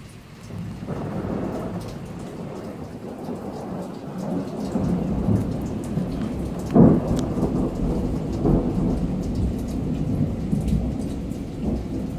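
Thunder rumbling over steady rain: the rumble swells about a second in, is loudest about seven seconds in, and rolls on afterwards.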